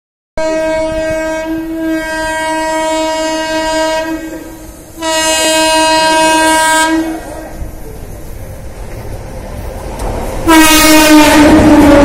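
Horn of an approaching passenger train blowing three long blasts: one of about four seconds, a shorter one of about two seconds, and a third, louder one starting near the end. Under the blasts, the rumble of the train on the rails grows.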